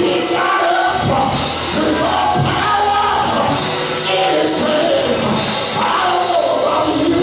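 Church music: a voice singing over instrumental accompaniment, loud and unbroken throughout.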